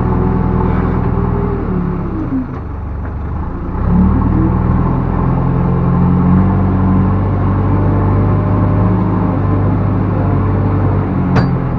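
Backhoe loader's diesel engine running under load, its pitch sagging a little past two seconds in and climbing back about four seconds in. A brief sharp knock sounds near the end.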